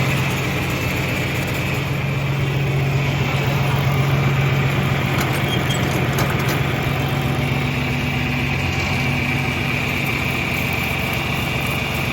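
Farm tractor engine running steadily at a constant speed, with no change in pitch.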